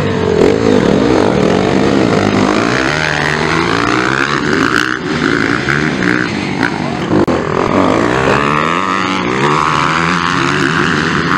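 Several motocross bikes' engines revving hard around the track, overlapping, with the pitch rising and falling as the riders open and close the throttle and shift.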